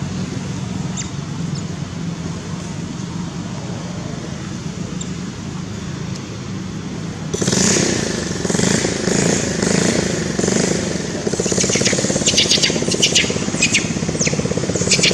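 A motor vehicle engine runs as a steady low hum, then grows louder about halfway through, with a rapid buzz and scattered sharp high clicks.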